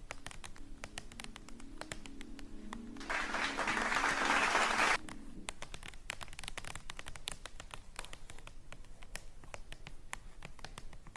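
Close, dense tapping and scratching clicks, irregular and continuous, with a hissing burst about three seconds in that lasts about two seconds.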